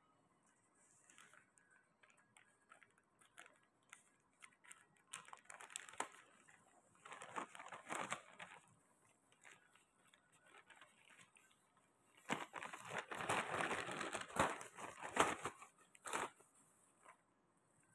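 Clear plastic zip-lock bag crinkling and rustling as it is handled and opened, in irregular bursts of a second or two with a longer, louder stretch of about four seconds in the second half.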